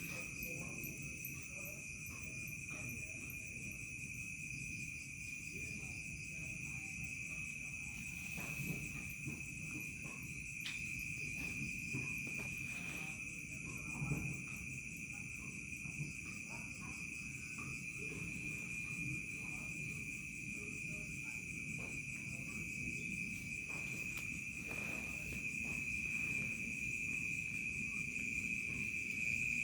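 Crickets chirring in a steady night chorus: one continuous high trill, with fainter, higher insect calls above it, over a low background rumble. A couple of faint knocks come about a third and halfway through.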